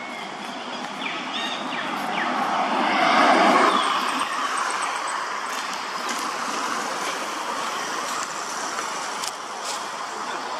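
A road vehicle passing by, its noise building to a peak a few seconds in and then easing off to a steady background rumble.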